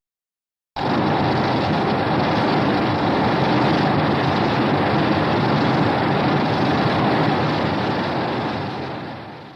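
A Heisei Godzilla film sound effect: a steady rushing noise with no clear pitch. It starts suddenly about a second in, holds for about eight seconds, then fades out.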